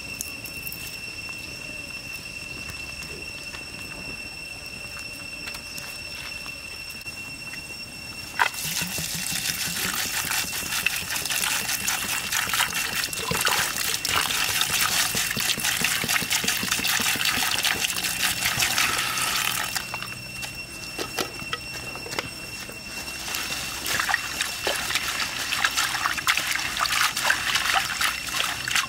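A steady high-pitched tone at first; then, about a third of the way in, water starts pouring into a wok of leafy greens and runs for about ten seconds. After a short lull, water splashes and sloshes as hands wash the greens in the wok.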